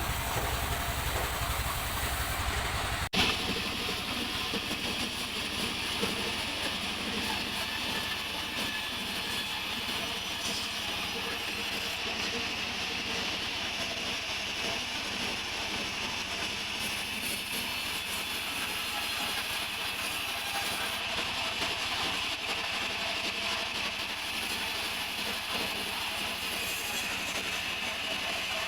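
Sawmill saw running steadily through a mahogany log, a continuous mechanical noise with a sudden break about three seconds in.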